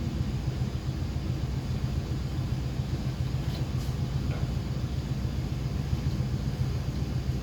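Steady low hum and rumble of background equipment noise, with a few faint light clicks near the middle.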